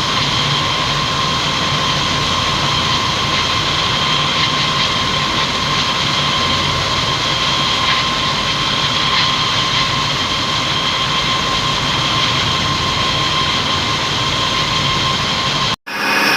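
CNC machine running steadily, a noisy drone with a high, even whine. It cuts off abruptly near the end.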